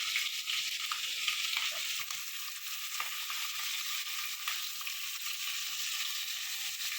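Chopped onion and garlic sizzling steadily in hot oil in a pan, with a few light clicks.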